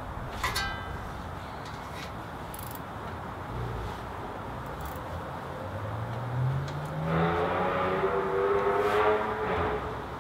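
A motor vehicle's engine rising in pitch as it accelerates, loudest from about seven to nine and a half seconds in. A brief high squeak comes about half a second in, and a few faint clicks come in between.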